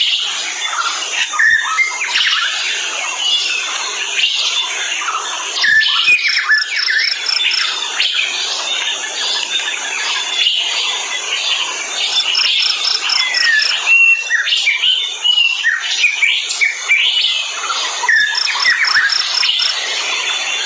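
Forest bird chorus: many birds chirping and whistling over one another. A quick run of high, evenly repeated notes recurs about every six seconds.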